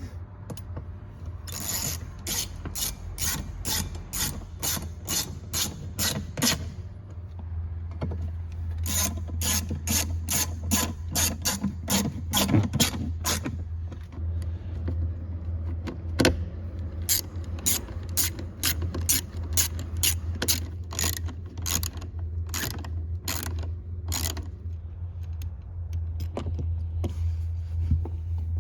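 Hand ratchet with a 7mm socket clicking steadily, about three clicks a second, in three runs with short pauses, as screws are driven back in. A steady low hum runs underneath.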